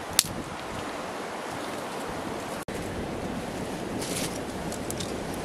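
Dry grass and twigs burning in a small open fire, a steady rushing hiss with a few sharp crackles: one just after the start and several about four seconds in.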